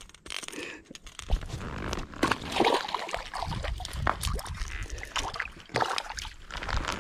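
Water splashing and sloshing at the bank, with many irregular sharp splashes.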